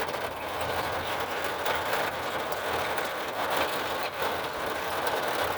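Heavy rain pouring down in a steady hiss, with scattered sharper drop hits.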